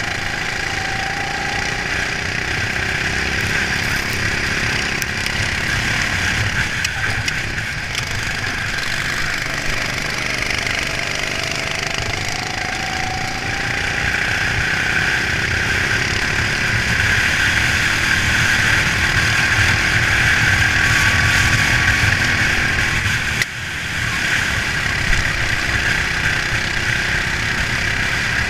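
Racing kart's engine running at race speed, heard from the kart's own onboard camera. The level holds steady except for a brief dip about 23 seconds in.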